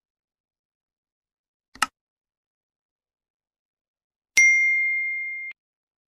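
A short click, then about two and a half seconds later a single bright, bell-like ding that rings for about a second and cuts off abruptly.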